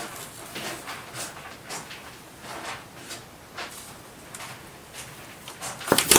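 Cat scrabbling over a carpeted cat-tree platform and into a mesh hoop net: irregular scratchy scrapes and rustles, with a couple of sharp knocks near the end.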